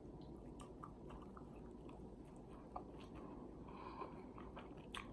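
Faint close-up chewing: a person eating with soft, scattered wet mouth clicks, and a brief low hum near the end.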